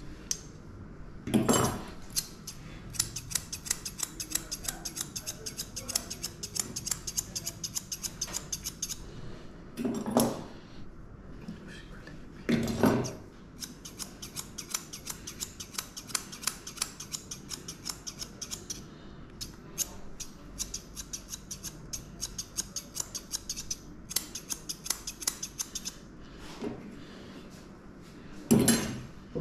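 Grooming scissors snipping a schnauzer's coat in long runs of rapid snips, with short pauses between runs. A few louder, brief noises break in between the runs, the loudest things heard.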